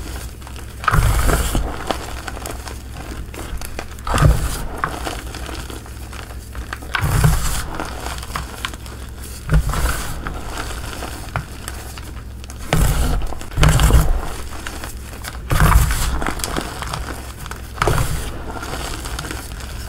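Hands crushing and squeezing a pile of crumbled gym chalk mixed with soft powder: a continuous crumbling, crinkly crunch, with a heavier dull thump every two to three seconds as the hands press down into the pile.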